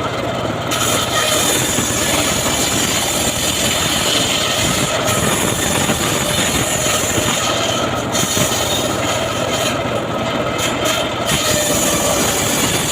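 A homemade engine-driven sawmill saw cutting sengon (albizia) wood: a loud, continuous, rasping run of saw noise with a high-pitched edge that briefly drops away a few times.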